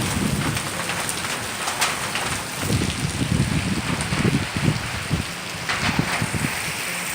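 Heavy rain pouring down in a windstorm, a dense steady hiss, with irregular low rumbles of wind gusting against the microphone through the middle of the stretch.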